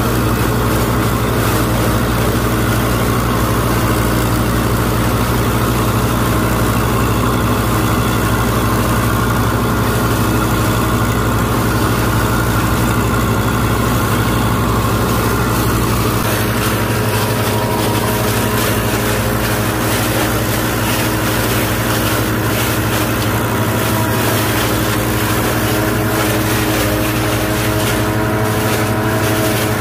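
IMT 558 tractor's diesel engine running steadily under load while driving a SIP SK 80 silage harvester chopping corn. About halfway through, the low engine note drops away and a steadier, higher machine hum takes over, as the harvester blows chopped corn into a trailer.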